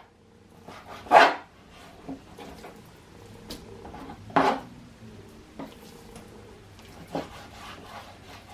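A dog barks twice, about three seconds apart. Between the barks come faint knocks and rubbing, like a knife on a cutting board.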